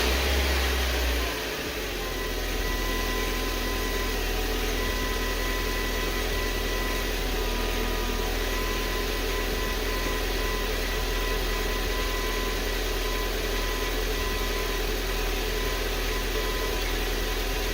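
A 2004 Honda Civic EM2's 1.7-litre four-cylinder engine has just caught on its first start after a head gasket replacement and rebuild. It runs louder and lower for about the first second, then settles into a steady idle with a faint steady whine.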